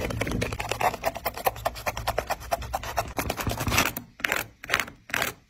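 Rapid scratching and rasping of a blade cutting and prying apart a Nike Kobe 6 sneaker's upper and sole. Near the end it changes to three or four separate, slower cutting strokes.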